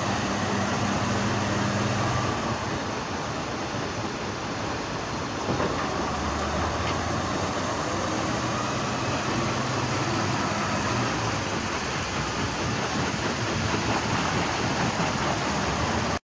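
Heavy diesel construction machinery running steadily under load, with a short knock about five seconds in; it cuts off suddenly at the end.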